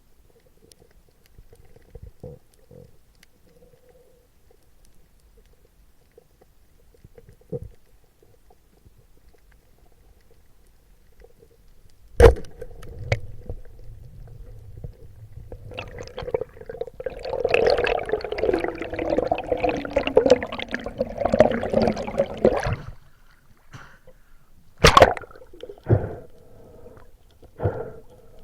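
Muffled water sound picked up underwater, with a sharp knock about twelve seconds in and a loud stretch of bubbling, gurgling water noise from about sixteen to twenty-three seconds, then a few more sharp knocks near the end.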